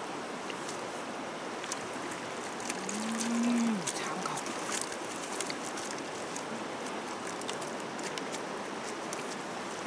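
One low moo from cattle, held for about a second a third of the way in, over a steady hiss with scattered faint clicks.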